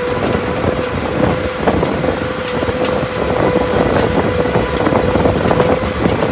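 Tractor-drawn plough working through soil: steady engine and machinery noise with a constant high tone, over a dense scraping rumble and frequent sharp ticks of soil and stones against the implement.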